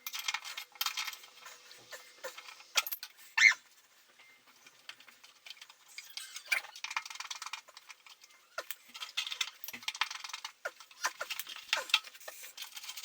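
Scattered metal clicks and clinks with a few louder knocks and short scraping passages, from hand tools and metal parts being handled while a water heater's heating element is fitted.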